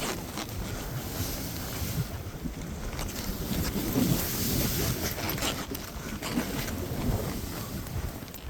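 Wind buffeting the microphone while riding on a snowboard: an uneven rushing noise with low gusts.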